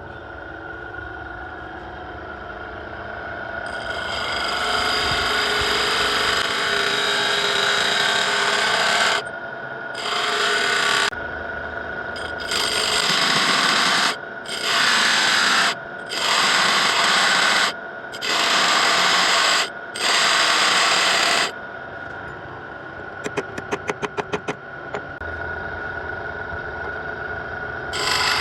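A sawmill saw blade being sharpened: one long scraping pass, then a string of strokes a second or two long with short pauses between them, and a quick run of clicks near the end.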